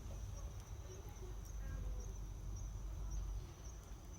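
Driftwood campfire burning quietly, with a few faint sharp crackles over a steady low rumble. A steady high-pitched insect trill, pulsing regularly, runs alongside it.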